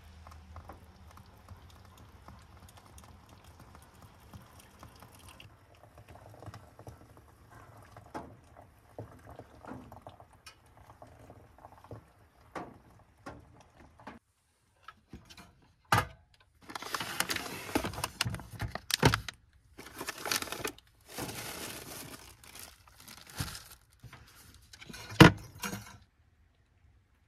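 Hot water poured from a gooseneck kettle over coffee grounds in a glass pour-over brewer, trickling and pattering faintly. Past the middle comes several seconds of loud rustling, and there is a sharp knock near the end.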